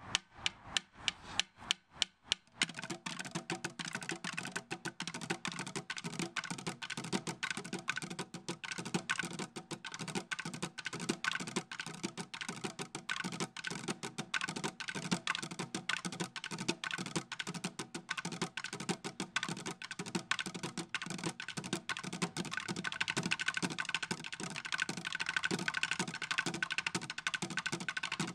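Bucket drumming: a group plays drumsticks on plastic buckets, a metal pan and tin cans. It starts with a few evenly spaced single strikes, then from about two and a half seconds in becomes fast, dense drumming that keeps going.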